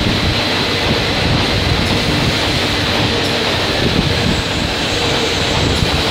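Steady, loud din of factory machinery: a dense, continuous rumble with a thin, steady high whine running through it.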